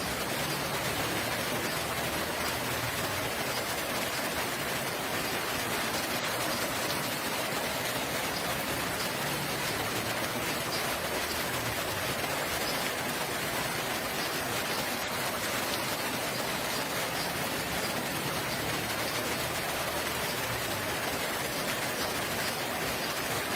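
Steady rain falling, an even hiss of drops that holds level throughout.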